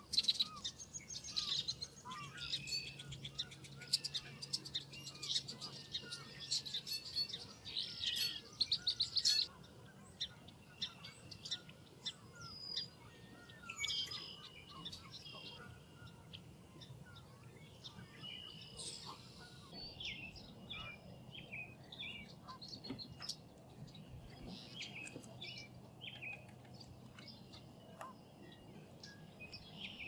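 Birds chirping and calling in many short high notes and trills, busiest in the first ten seconds and sparser after that.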